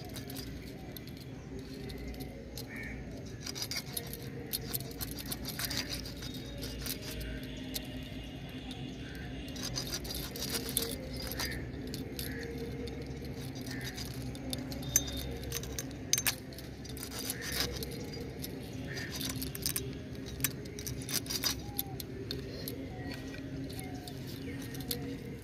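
A whole hilsa being cut into ring steaks on a boti, a fixed upright curved blade: a run of small crunching clicks as the fish is pushed through the blade, with the bangles on the cook's wrists jangling as she works. A faint steady hum sits underneath.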